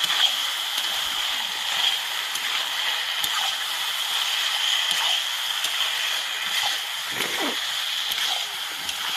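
Pork and potato curry sizzling steadily in a kadai as it is stirred with a wooden spatula, with scattered light scrapes and taps of the spatula against the pan.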